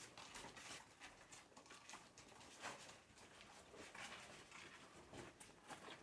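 Faint, irregular footsteps: scattered taps and scuffs of shoes on a hard tunnel floor, a few a second, in a small echoing space.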